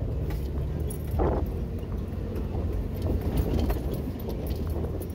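Jeep engine running low and steady while crawling off-road over rocky ground, with scattered knocks and rattles from the body and suspension.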